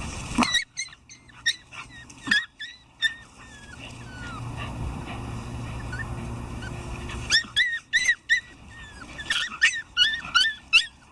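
Shiba Inu giving short, high yips and whimpers in two flurries: a few near the start, then a quicker run near the end.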